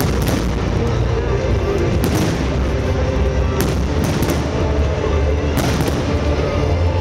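Aerial fireworks shells bursting: four sharp bangs spaced about one and a half to two seconds apart over a steady loud din, with music playing underneath.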